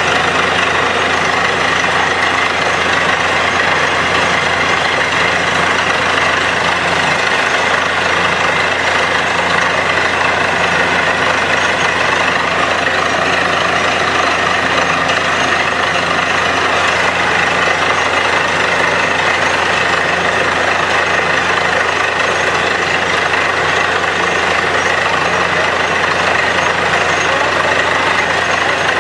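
Truck-mounted borewell drilling rig running steadily while drilling, its engine and drilling machinery droning without a break as muddy water and cuttings spray up out of the hole.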